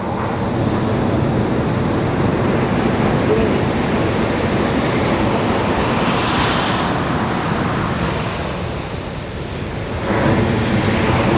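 Ocean surf breaking on a beach: a continuous rush of waves, with the hiss of breaking water swelling about halfway through and again soon after. It eases off, then surges again near the end.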